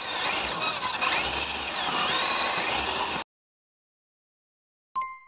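Small 260-size electric motor and gears of a 1/10 WPL D12 RC truck whining as it is driven, the pitch rising and falling with the throttle; it cuts off abruptly after about three seconds. After a silence, a single bright ding rings out near the end and fades.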